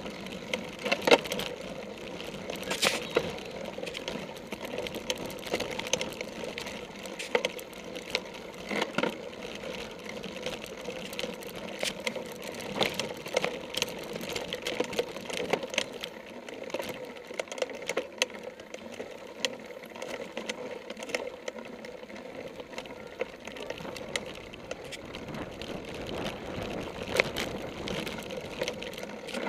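Cyclocross bike and its mounted camera rattling and clicking steadily as the bike rolls over bumpy grass, with a few louder knocks near the start and again near the end.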